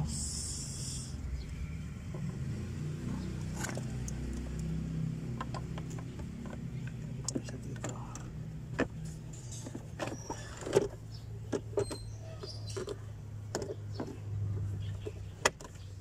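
Plastic clicks and knocks as a car's centre console trim panel is handled and pressed into place around the handbrake, over a steady low hum.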